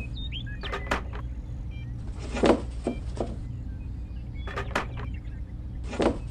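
Light taps and knocks of cherries being set into a plastic toy trailer bed, in small clusters a second or two apart, over a steady low hum. A few faint bird chirps come near the start.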